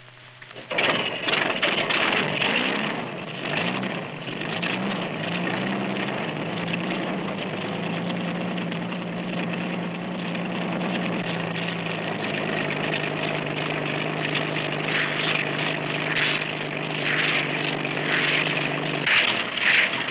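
Engine of a homebuilt reciprocating-propeller helicopter, chain-driven through a jack shaft, starting up suddenly and running. Its pitch climbs over the first few seconds, holds steady, then drops a step a little past halfway.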